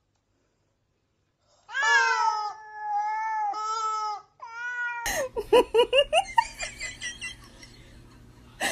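A domestic cat yowling in long, drawn-out meows, then a run of short, quick meows a few seconds later.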